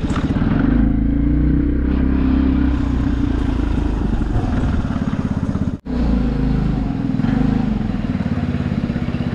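Vespa scooter's single-cylinder engine running with a steady low rumble. The sound drops out sharply for an instant about six seconds in, then the engine carries on.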